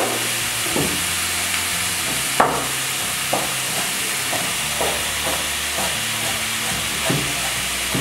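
Onion frying in olive oil in a pan, a steady sizzle, with irregular knocks of a chef's knife chopping cilantro on a wooden cutting board; the loudest knock comes about two and a half seconds in.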